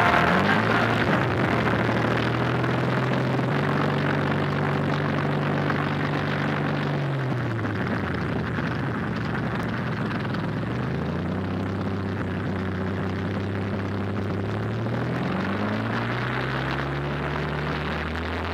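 Piston-engined propeller aircraft running on an old film soundtrack played over a loudspeaker. It is a steady roar whose engine note climbs near the start, holds, drops about seven seconds in, and climbs again about ten seconds in, with another dip and rise near the end.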